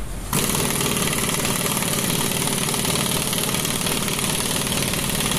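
Pneumatic impact wrench running with a steady rapid hammering rattle as it drives a bead breaker to push a tractor tyre's bead off the rim, after a brief pause at the start.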